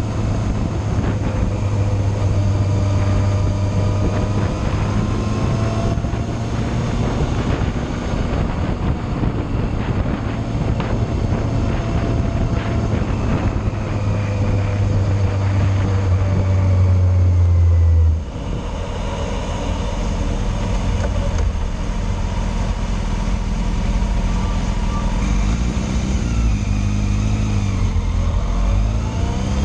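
Yamaha Fazer motorcycle engine running at a steady cruise with wind noise over the microphone. A little past the middle the throttle closes and the engine note drops suddenly, then near the end it rises in short steps as the bike accelerates through the gears.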